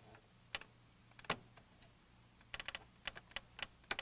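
Light, sharp clicks and taps of hands working the plastic and metal parts of a Macintosh Portable as its internal hard-drive cable is connected: a few single clicks, a quick run of four about two and a half seconds in, then a few more near the end.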